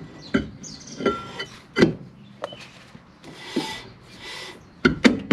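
A steel brake drum being worked onto the rear brake shoes by hand: a series of metallic clunks and knocks with ringing, and scraping as the drum rubs over the shoes.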